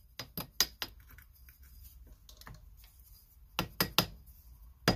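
Light metal taps of a short threaded steel pipe nipple against a Walbro small-engine carburetor, struck to shock a stuck part loose: a quick run of about four taps, then after a pause a few more near the end.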